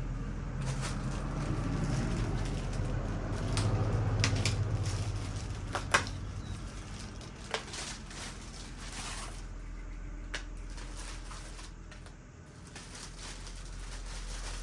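Handling and fitting a BMX pad set, with rustling and a few sharp clicks and knocks, over a steady low hum.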